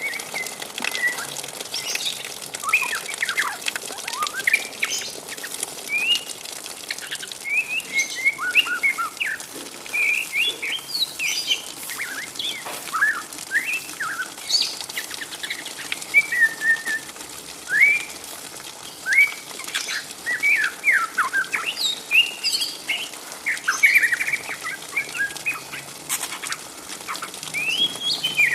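Juvenile white-rumped shama (a speckled 'trotol' about 3–4 months old) twittering in the rambling 'ngriwik' style: a steady stream of short chirps and quick rising and falling notes with no pause.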